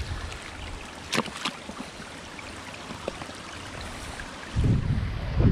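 Shallow river flowing and trickling over stones, with a few sharp clicks of shoes stepping on rocks. About four and a half seconds in, a loud low rumble of wind on the microphone joins it.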